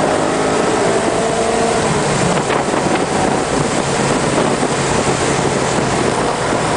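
Ferrari F355's V8 engine easing off, its pitch falling over the first second or so, then running steadily at lower revs under wind and road noise heard from inside the cabin.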